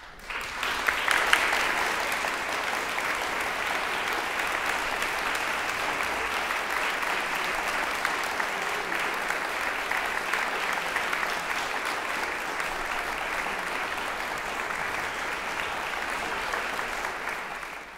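Audience applauding, starting suddenly and holding steady, then fading out at the very end.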